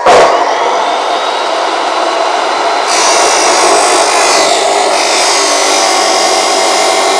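Abrasive chop saw running at speed. About three seconds in, its cut-off disc bites into steel angle and the sound turns harsher and slightly louder as it grinds through the steel.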